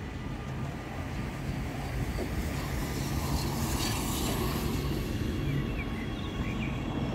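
A railway level crossing's electronic bell (NMA EBA E-bell) ringing steadily as the barriers come down for an approaching metro train. About three to four seconds in, a car passes close by, the loudest sound here, over a low steady hum.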